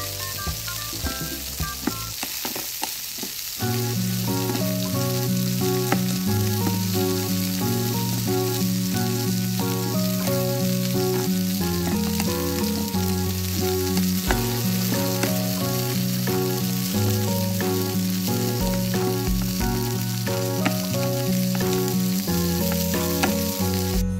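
A steady frying sizzle sound effect, like food in a hot pan, that cuts off suddenly at the end. A cheerful tune with a steady low bass line plays over it from a few seconds in.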